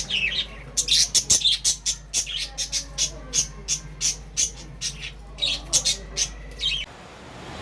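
Small birds chirping: a quick run of short, sharp, high-pitched chirps, about three a second. They stop suddenly near the end, leaving a faint steady hiss.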